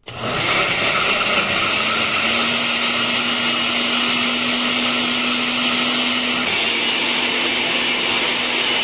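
Countertop blender motor switching on and running steadily at full speed, with a high whine over a low hum, as it blends watermelon, cucumber and ginger chunks with water into juice.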